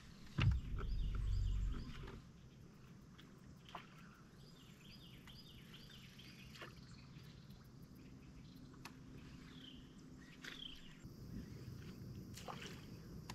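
Quiet lakeside ambience with small birds chirping repeatedly and a few light clicks. A loud low rumble comes about half a second in and lasts a second or so.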